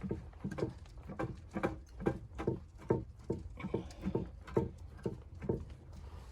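Footsteps in deep snow, a steady walking pace of about two steps a second, stopping about five and a half seconds in, over a steady low rumble.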